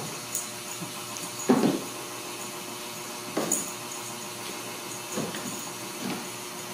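Steady background hiss with a few short soft scuffles from kittens playing on a tile floor, the clearest about one and a half seconds in and the others spaced roughly two seconds apart.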